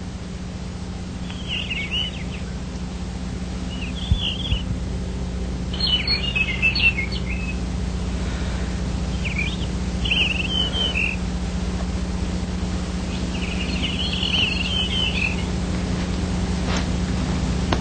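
Birds chirping in short clusters of calls every few seconds, over a steady low hum.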